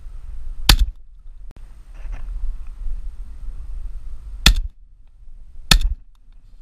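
Three shotgun shots at pigeons: one less than a second in, then two more in quick succession about four and five and a half seconds in, roughly a second and a quarter apart. Wind rumbles on the microphone between the shots.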